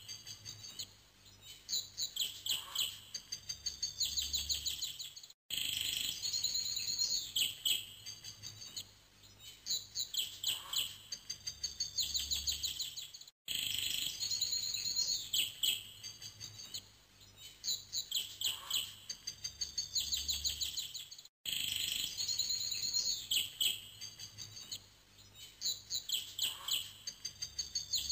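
Looped recording of songbirds chirping and trilling, the same stretch of about eight seconds repeating over and over, with a brief dropout at each join.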